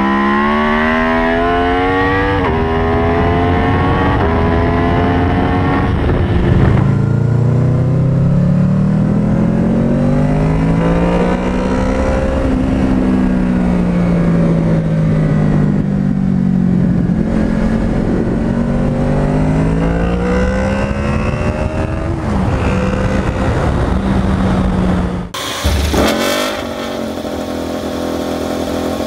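Aprilia Tuono 1100's 65° V4 accelerating hard, its pitch climbing and dropping at an upshift. Then a different motorcycle engine rises and falls in revs on the road. Near the end a KTM RC16 MotoGP V4 is fired on a roller starter and settles into a steady idle.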